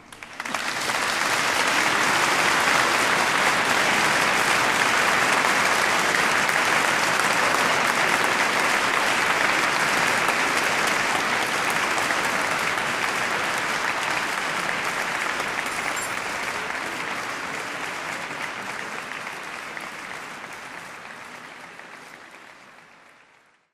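Audience applauding. The clapping starts at once as the music ends, holds steady, then thins out over the last several seconds before cutting off.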